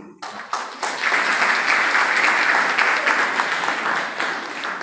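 Audience applauding in a hall, many people clapping; it builds quickly, holds, and thins out near the end.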